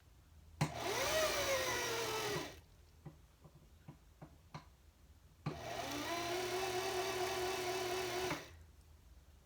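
Singer Heavy Duty sewing machine motor running twice under the foot pedal to wind the bobbin: a run of about two seconds whose whine jumps up and then sags, and a steadier run of about three seconds. A few light clicks come between the two runs.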